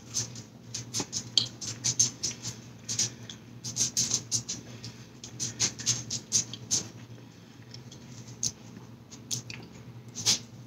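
Close-miked chewing: irregular wet mouth smacks and clicks, with a lull of about two seconds past the middle. Near the end comes a fresh bite into a footlong chili cheese coney dog.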